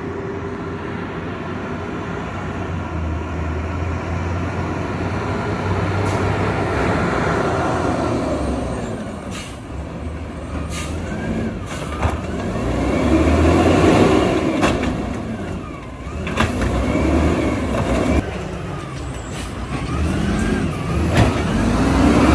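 Automated side-loader garbage truck running at the curb, its engine and hydraulics revving up and down several times as the arm works, with sharp metallic clunks as a cart is gripped, lifted and knocked against the truck.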